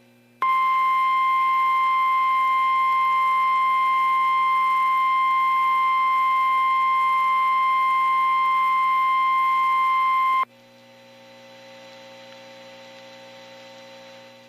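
NOAA Weather Radio 1050 Hz warning alarm tone: a single steady tone held for about ten seconds, then cut off, signalling that a warning message follows. Before and after it there is only faint radio hiss and hum.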